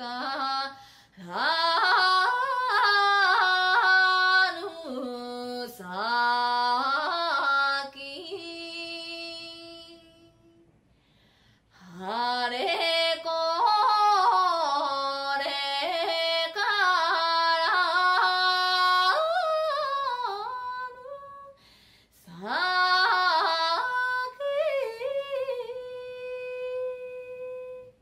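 Recorded female Amami shima-uta singing: a single voice holding long notes with sharp, yodel-like breaks into falsetto. The phrases are separated by pauses, with a stretch of near silence about a third of the way through.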